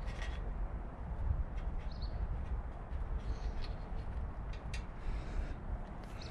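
Steady low background rumble with a few faint high bird chirps and some light clicks from motorcycle wiring and connectors being handled.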